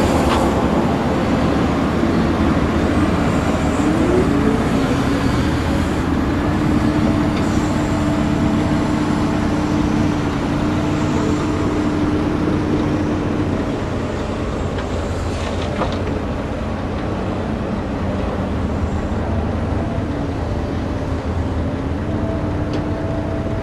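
Heavy diesel engines of a crawler excavator and dump trucks running at work, a continuous machine rumble. About four seconds in, an engine note rises and holds steady, then drops away after about fourteen seconds.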